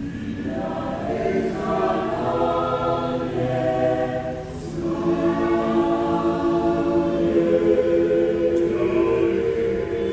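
Salvation Army mixed choir of men and women singing a song in harmony, with a short pause for breath about four and a half seconds in, then a long held chord.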